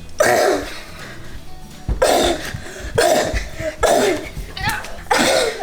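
A child coughing five times, spaced about a second apart, over a steady music bed.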